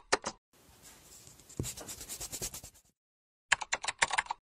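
Felt-tip marker scribbling on a drawing surface, a scratchy rapid stroking for about two seconds. Short bursts of quick keyboard-typing clicks come at the very start and again near the end.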